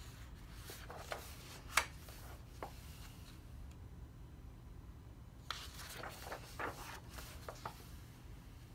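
Paper pages of a large paperback coloring book being turned by hand, twice: each turn is a short run of paper rustling and crinkling, the first with a sharp paper snap about two seconds in.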